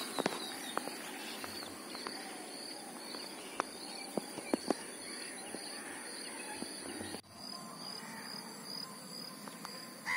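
Outdoor lakeside ambience: insects keeping up a steady high-pitched drone with regular chirping, faint birds, and a few short sharp clicks.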